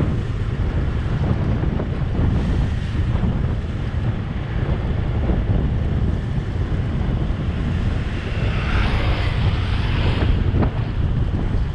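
Wind buffeting the microphone of a camera on a moving vehicle: a steady low rumble, with a brief hissing swell about nine seconds in.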